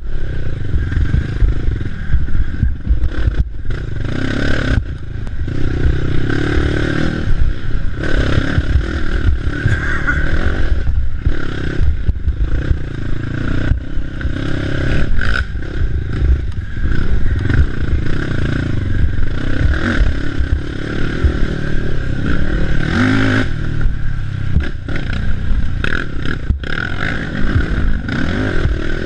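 Racing ATV engine revving up and down without a break as it is ridden hard over rough off-road ground, heard from on board. Frequent rattles and knocks from the machine run through it.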